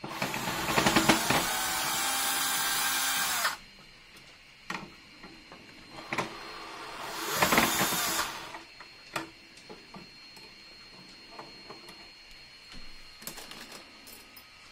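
Cordless drill driving screws through a hinge into a wooden board: one steady run of about three and a half seconds, then a shorter run about seven seconds in. Scattered clicks and knocks come between the runs and near the end.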